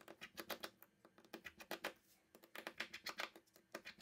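Precision screwdriver turning out the small screws of a phone's loudspeaker module: faint, quick runs of light clicks, coming in short bursts with brief pauses between.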